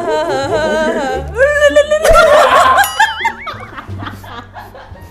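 Singing over backing music, with long held notes that waver up and down and a high warbling note about three seconds in, while several people laugh.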